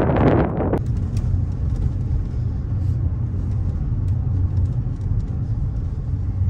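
Wind buffeting the microphone, cut off abruptly just under a second in, then the steady low rumble of a car heard from inside the cabin as it drives.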